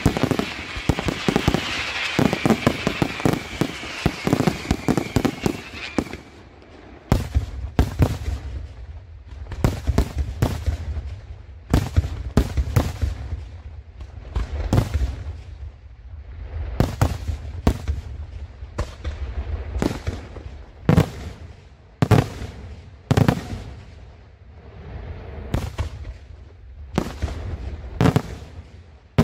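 Daytime fireworks display: for the first six seconds a dense, rapid crackling of many small bursts, then from about seven seconds in a string of separate loud bangs from aerial shells bursting at irregular intervals, about one to two a second, with a low rumble between them.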